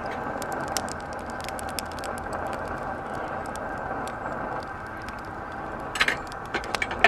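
Optimus Svea white-gas stove burning with a steady roar under a kettle at the boil, with scattered small crackling ticks. A short clatter of clicks about six seconds in.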